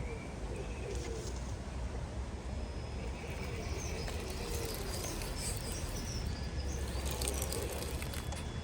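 Birds calling, with high chirps through the middle, over a steady low outdoor rumble, and a few clicks near the end.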